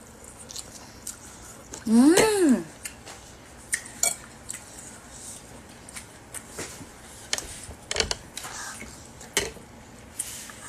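Spoons clinking against soup bowls in scattered light taps during a meal. About two seconds in, one short cry from a voice rises and then falls, and it is the loudest sound.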